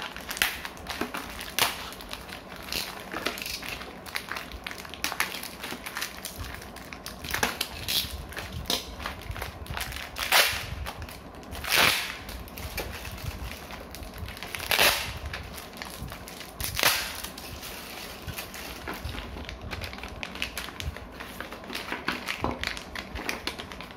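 Plastic and foil packaging of a Beyblade Random Booster being handled and opened by hand: steady crinkling and clicking, with four louder crumples around the middle.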